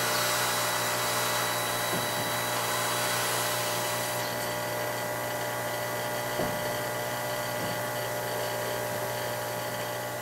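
CO2 laser cutter's fans and pumps running: a steady whirring hum with many fixed tones under a hiss, the highest hiss easing about four seconds in, with a few faint ticks.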